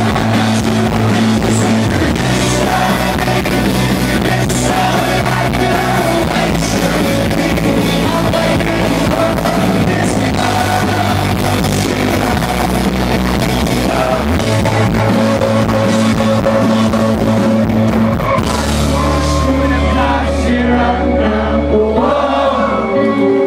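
A rock band playing live, with singing over sustained bass notes that change every few seconds. Near the end the bass drops out as the song winds down.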